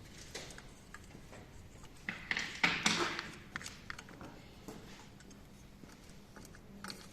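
Hand tools and metal engine parts being handled during an engine teardown: scattered light clicks and taps, with a short burst of clattering about two seconds in.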